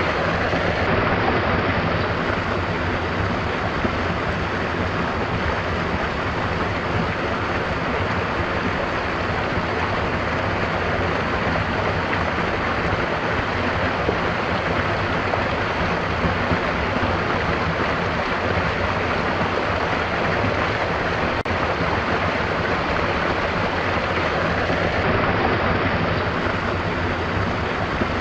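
Water of a stream running steadily, an even, unbroken rush of water noise.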